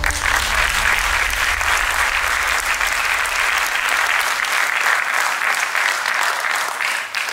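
Audience applauding: many hands clapping together, starting suddenly and holding steady before dying away near the end.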